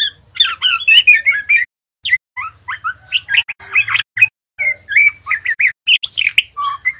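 Juvenile male white-rumped shama singing a rapid, jumbled run of short chirps and twittering glides in bursts with brief pauses. This is the chattering practice song (ngeriwik) of a young bird still learning to sing.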